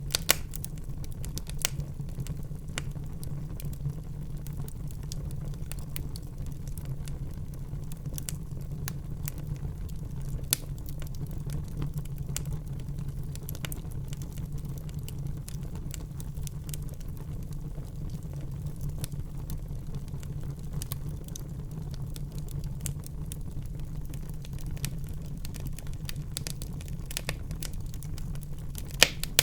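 Wood fire burning in a fireplace: a steady low rumble of flames with scattered crackles and occasional sharper pops, a few louder ones near the start, about ten seconds in, and near the end.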